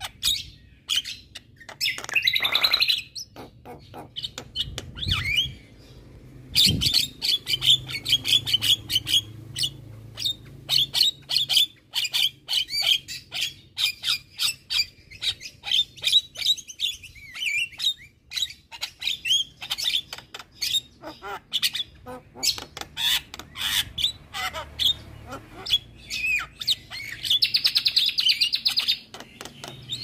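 Javan myna singing a long, rapid chatter of sharp clicking and whistled notes, with a harsh rasping phrase a couple of seconds in and a fast buzzy trill near the end.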